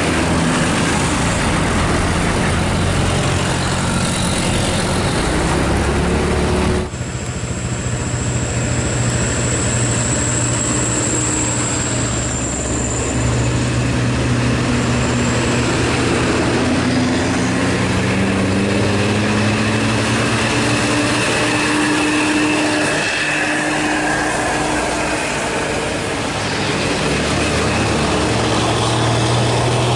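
Heavy diesel coach-bus engines working up a steep climb, the engine note rising and falling. The sound changes abruptly about seven seconds in, and a high, thin steady whine is heard for a few seconds after that.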